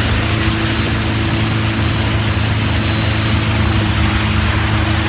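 Motorboat engine running at a steady pitch, a constant drone under a steady hiss of wind and water.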